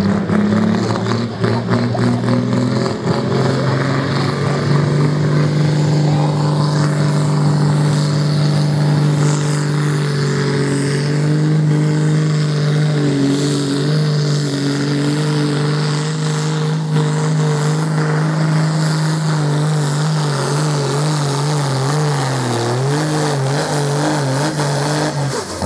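A pulling tractor's engine running hard at high, steady revs under full load, its pitch wavering up and down over the last several seconds.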